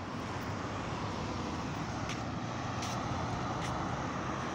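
Road traffic going by on the street alongside: a steady hum of car tyres and engines that swells a little midway, with a few faint ticks.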